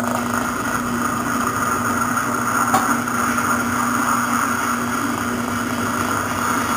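A kart tire-cutting machine runs with a steady hum, its motor spinning a Burris 33A dirt-kart tire on the arbor. There is one short click about two and a half seconds in.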